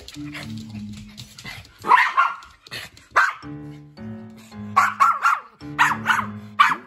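Pomeranian barking angrily, sharp high barks singly and in quick runs of two or three, over background music with a steady bass line.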